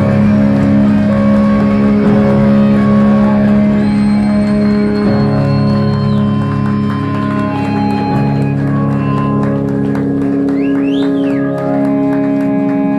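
Live rock band playing a slow passage of long held chords, with electric guitar and bass sustaining their notes. The recording is a rough, loud audience recording.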